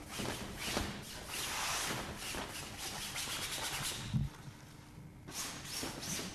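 Paintbrush scrubbing oil paint onto a canvas in repeated rasping strokes, with one thump about four seconds in and a last short flurry of strokes near the end.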